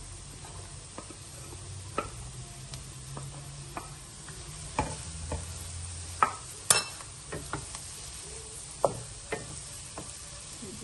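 Diced onion, carrot and celery sautéing in butter in a wok, sizzling steadily, while a wooden spatula scrapes celery in and stirs, knocking against the pan at irregular moments; the sharpest knock comes about two-thirds of the way in.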